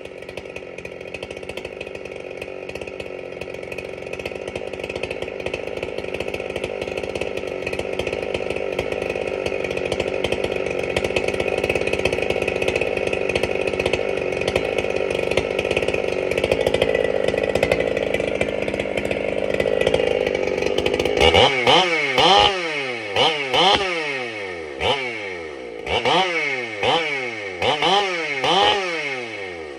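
Husqvarna 395 XP two-stroke chainsaw with a dual-port muffler running steadily at idle. From about two-thirds of the way in, it is revved in a string of quick throttle blips, each rising and dropping back.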